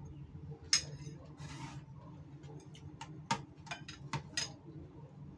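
A person eating from a ceramic bowl: sharp clicks of a spoon against the bowl and mouth noises while chewing. One click comes a little under a second in, a short breathy rush follows around a second and a half, and a quick run of clicks comes after three seconds, over a low steady hum.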